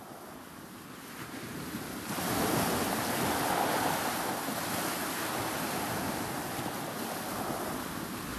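Steady rushing of wind and North Sea surf, swelling up over the first two seconds and then holding steady.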